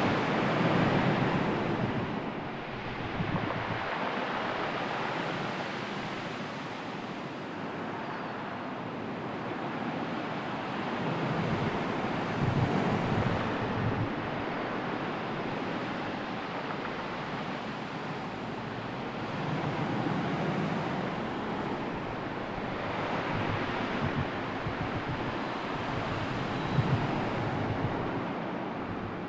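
Sea waves surging and washing in, swelling and easing every several seconds, with wind gusting on the microphone as a low rumble.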